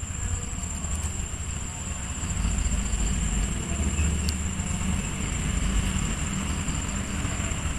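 Insects trilling steadily in one unbroken high tone over a low, uneven rumble.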